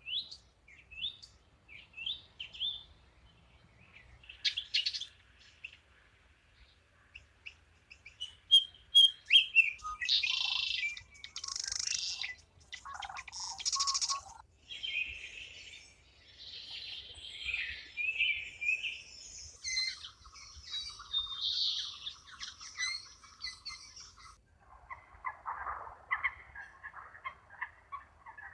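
Songbirds chirping and singing: scattered short chirps at first, then several calls overlapping, denser from about ten seconds in.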